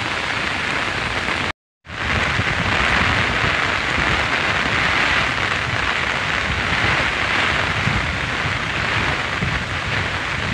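Heavy rain pouring down steadily, a dense even hiss, with a brief total dropout to silence about one and a half seconds in.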